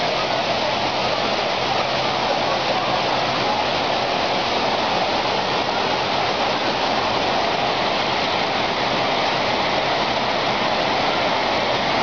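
Water falling over a concrete spillway waterfall, a steady, unbroken rushing noise.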